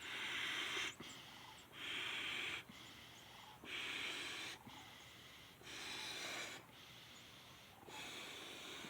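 A person breathing close to the microphone: five rushing breaths about two seconds apart, each lasting about a second.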